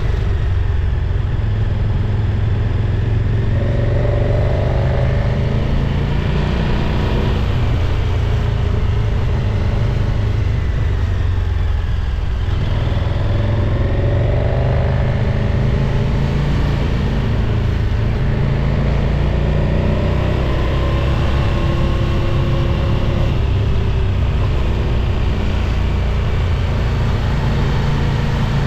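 Motorcycle engine running on the move, its pitch rising and falling several times as it accelerates and eases off, over a steady heavy low rumble.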